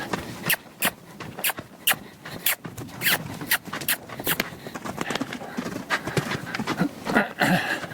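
Hoofbeats of a mustang moving around loose on open ground: sharp irregular strikes at about two a second, with a brief louder noise about seven seconds in.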